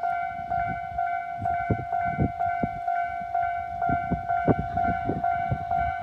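Japanese railway level-crossing electronic warning bell ringing in a steady repeating pattern. It is the standard Tobu crossing tone, but its timbre sounds odd. Underneath are irregular low knocks and rumble, typical of a train's wheels passing over the rails.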